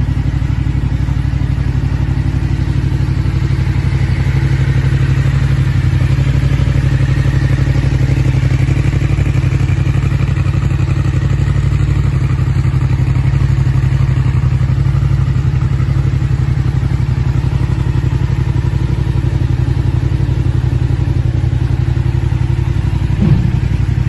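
Yamaha MT-07's 689 cc parallel-twin engine idling steadily through an Arrow aftermarket exhaust, a loud, even low throb.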